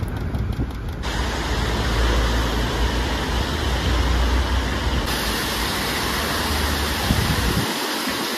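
City street ambience: a steady rush of traffic noise with a low rumble. It changes abruptly about a second in, again about five seconds in and near the end as the footage cuts.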